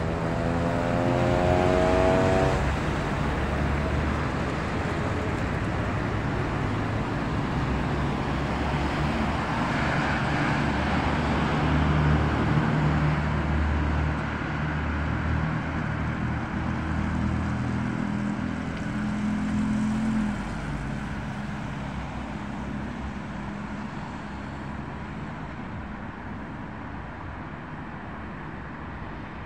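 Road traffic at a busy junction: cars passing, with an engine note climbing in pitch as a vehicle accelerates in the first couple of seconds. The traffic is loudest in the middle and quieter after about twenty seconds.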